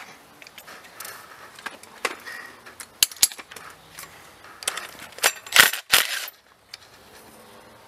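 Wrench working the half-inch bolts on an EGR valve: scattered sharp metallic clicks and clinks, with a pair about three seconds in and the loudest cluster a little past halfway.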